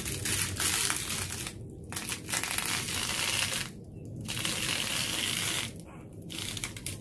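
Plastic snack wrapper crinkling and rustling as it is pushed through and slid down a tube of lei netting, in three long stretches with short pauses about two, four and six seconds in.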